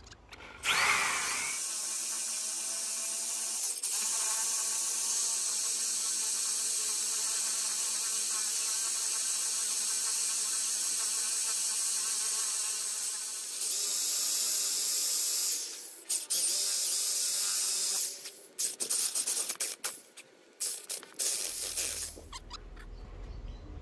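Corded electric drill with a spade bit boring into dry white mahogany: a steady whine for about fifteen seconds, then a shorter run and several brief bursts as the trigger is pulled on and off, stopping shortly before the end.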